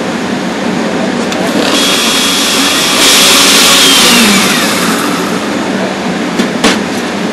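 Countertop blender puréeing a mango sauce: the motor starts about two seconds in, runs louder with a high whine for about a second and a half, then winds down with a falling whine. A sharp click comes near the end, over a steady hum of kitchen ventilation.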